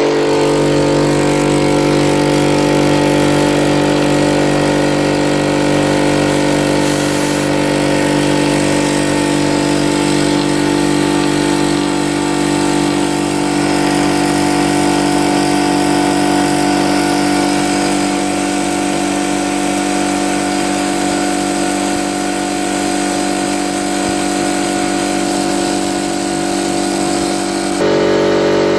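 A 50-litre ALDI air compressor running steadily, its motor and pump building pressure in the tank, with a slight change in its tone near the end.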